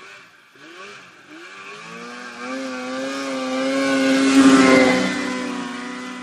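Snowmobile engine revving in a few short rising blips, then running at a steady pitch as it passes close by, loudest about four and a half seconds in before fading away.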